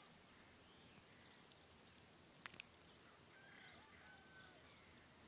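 Near silence: faint background with a soft, rapid high-pitched pulsing trill, about eight pulses a second, heard twice, and two faint clicks about halfway through.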